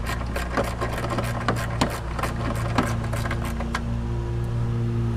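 Ratcheting box-end wrench clicking in quick, even strokes as it works an 8 mm bolt, about three to four clicks a second, stopping about two-thirds of the way through.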